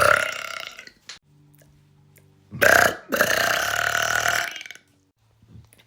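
A woman burping loudly. The tail of one burp fades out in the first second; then, about two and a half seconds in, a short burp runs straight into a long, drawn-out one of about a second and a half.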